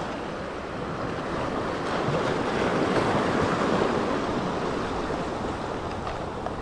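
Seawater surging and washing over a rocky reef flat: a steady rush of surf that swells in the middle and eases toward the end.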